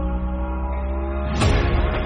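Background music: held chords over a deep steady bass, with a single cymbal-like hit near the end.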